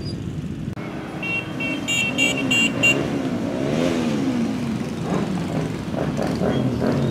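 A procession of motorcycles riding past, engines revving up and dropping back as they go by. A horn gives a quick string of short beeps between about one and three seconds in.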